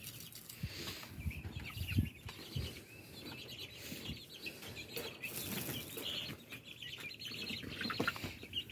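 Young guinea keets peeping and chirping in quick runs, with scattered low thumps and rustling of movement in the coop.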